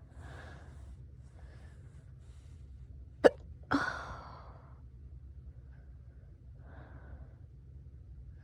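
A person hiccuping: one sharp, sudden hic about three seconds in, followed at once by a short voiced sound that trails off. There are soft breaths before and after.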